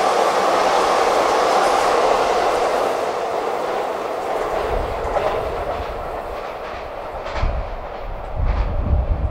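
JR E233 series 7000 electric commuter train running out and pulling away, its running noise fading over the first few seconds. A few wheel clacks come near the end, over an irregular low rumble in the second half.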